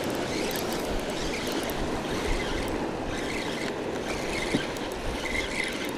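Surf washing against the rocks of a stone jetty, a steady rush of water with some wind rumble on the microphone, and one light click about four and a half seconds in.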